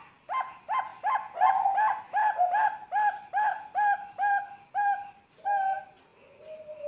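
Juvenile zebra dove (Bangkok perkutut), about three months old, calling: a quick run of about a dozen short cooing notes, each swooping up then levelling, about two a second, followed near the end by one soft, lower, falling coo.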